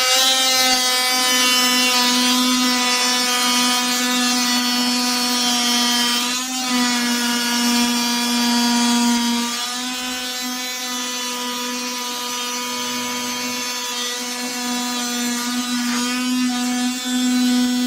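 KIMO 20V cordless oscillating multi-tool running at a steady pitched buzz, its blade cutting into an old wooden baseboard. The pitch wavers briefly about six and a half seconds in and again near sixteen seconds.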